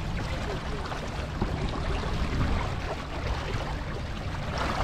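Steady rush of wind and water aboard a MacGregor 26X sailboat running downwind, the wind rumbling heavily on the microphone.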